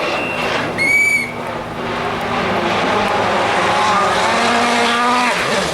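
Rally car engine under hard acceleration, its pitch climbing steadily for about three seconds, then dropping sharply near the end as it changes gear. A brief shrill whistle sounds about a second in.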